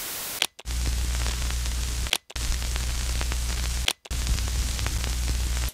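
Television static hiss with a low hum under it, broken by three brief cut-outs. Each cut-out is marked by a short, high falling blip, like a TV switching channels.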